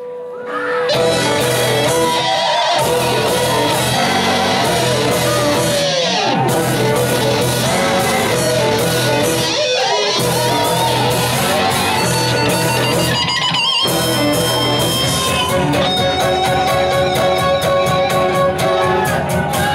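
Large folk ensemble playing live, fiddles and a tuba among the instruments. The music breaks off for a moment about every three and a half seconds, then runs on unbroken for the last few seconds.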